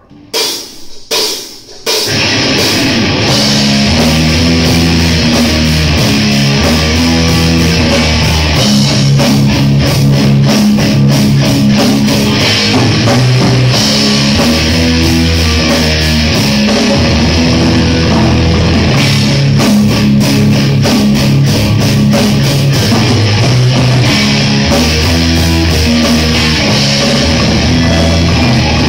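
Rock band playing loud and instrumental, with electric guitars, bass and drum kit. A few short separate hits come first, then the full band comes in together about two seconds in and plays on steadily.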